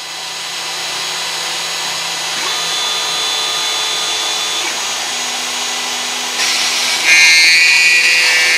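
CNC milling machine spindle running and cutting a plastic part: a steady whine whose tones shift several times. It gets louder and harsher about seven seconds in.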